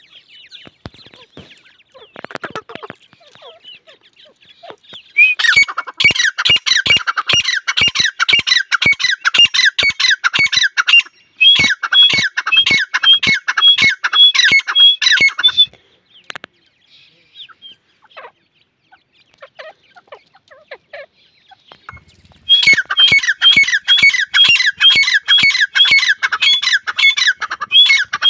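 Grey francolin calling: a loud, rapid run of shrill repeated notes, given in long bouts that start about five seconds in, pause for several seconds in the middle, and start again near the end.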